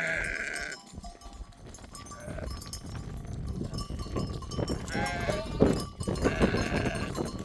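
Sheep bleating: one call right at the start, then more calls about two-thirds of the way in and near the end.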